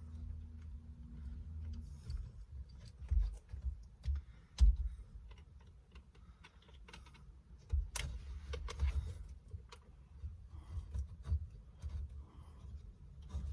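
Irregular small clicks and knocks of a screwdriver prying at the retaining clip of a car's steering-wheel airbag, with two sharper knocks, one about a third of the way in and one a little past the middle, over a low rumble.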